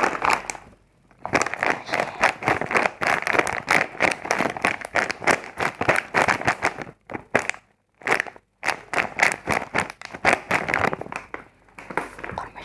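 Dense, rapid crackling and crinkling, typical of packaging or crunchy food being handled close to the microphone, with a short pause about eight seconds in.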